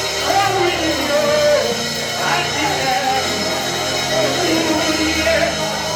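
Live gospel worship music: a lead voice singing or chanting over a steady, sustained instrumental backing.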